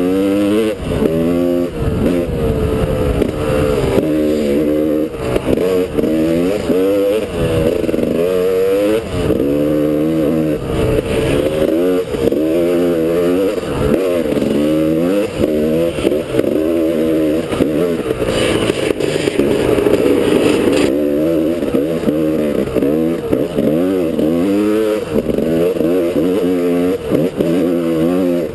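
Two-stroke dirt bike engine heard close up, revving up and down over and over as the throttle is opened and closed, with dull knocks now and then.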